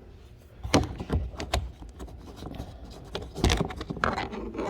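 Scattered clicks and knocks, about five spread irregularly, from hands and tools handling parts while working on a car's rear door latch.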